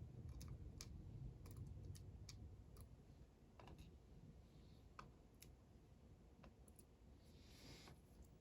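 Faint, scattered small clicks of lock pins and springs being shaken out of a pin-tumbler lock's chambers and handled during disassembly, with a dozen or so irregular ticks over a low background hum.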